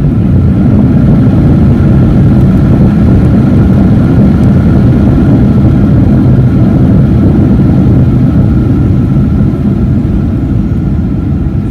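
Boeing 737-800 jet engines and rushing air heard inside the passenger cabin: a loud, steady, deep rumble with a faint whine above it. It swells in the first second and eases slightly near the end.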